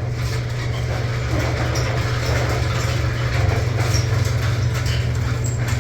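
Steady low mechanical hum of running machinery, with faint scattered clicks and knocks of work over it.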